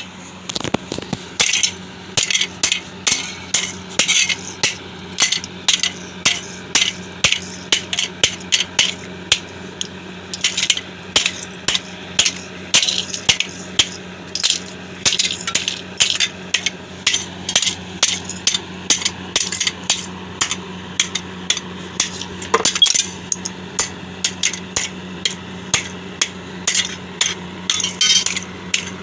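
Repeated sharp blows, about two a second with brief pauses, as a tool smashes old computer hardware, with clinking and rattling of metal and plastic parts.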